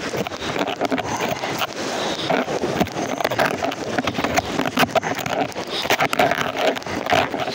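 Fast, muddy floodwater rushing and splashing against a plastic kayak, with many scrapes and knocks throughout.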